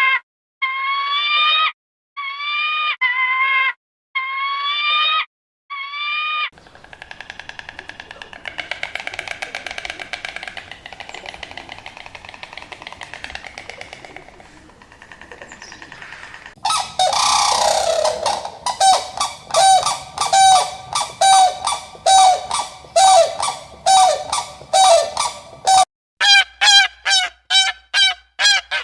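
Animal calls in several edited segments: first short pitched calls separated by silences, then a long buzzy, pulsing call, then loud honking calls repeated about one and a half times a second, and faster repeated calls after a cut near the end.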